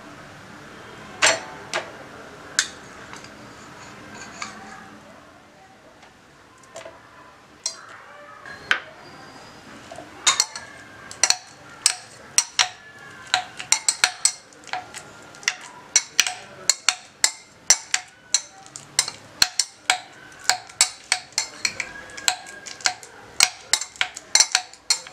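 Steel spoon clinking against the inside of cut-glass tumblers as banana slices are spooned in. A few clinks at first, then quick repeated clinking, about three a second, from about ten seconds in.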